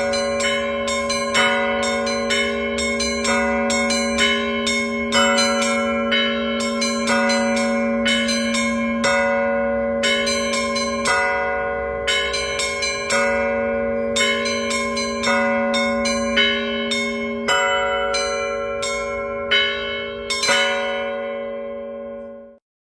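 Russian Orthodox cathedral bells ringing a festive peal: quick patterns on the smaller bells over a deeper ringing bell. The set is Vera-foundry bells with a Danilov-cast blagovestnik. The strikes stop about two seconds before the end and the bells ring away to silence.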